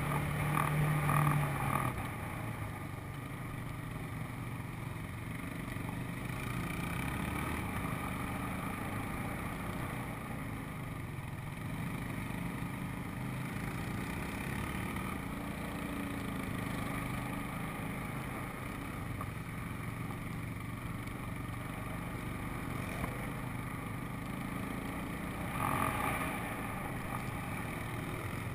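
ATV (four-wheeler) engine running steadily while riding along a dirt trail, louder for the first couple of seconds, with a brief louder rush near the end.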